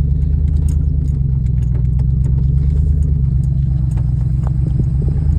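Vehicle engine running steadily at a low, even pitch while driving, with small clicks and rattles over it.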